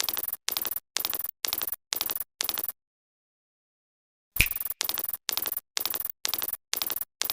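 A short, identical sound-effect clip played over and over, about twice a second, in two quick runs with dead silence of about a second and a half between them. Each repeat starts sharply.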